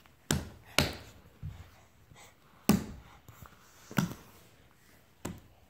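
A baby's bare hands slapping a hardwood floor as he crawls: about six sharp slaps at uneven intervals.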